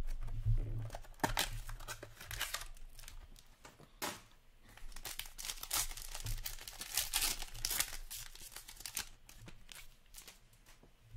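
A hockey trading-card pack's wrapper being torn open and crinkled by hand, in a run of quick tearing and crackling noises.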